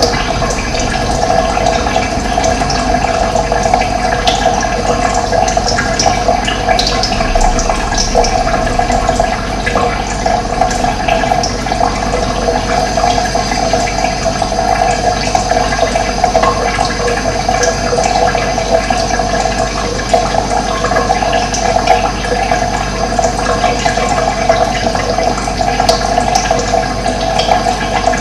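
Running water: a steady, unbroken rushing flow.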